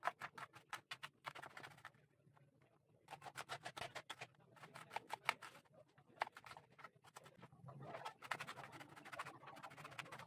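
Kitchen knife finely chopping a red onion on a wooden cutting board: light, quick taps of the blade on the board, about six a second, in runs broken by short pauses.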